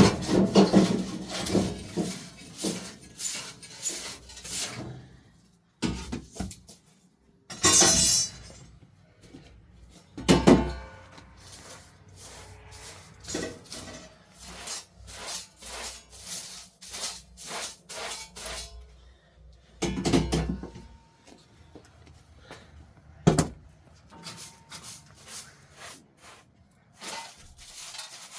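Irregular knocks, clinks and clatter of household items, such as pots and dishes, being handled and set down, with a few louder thuds.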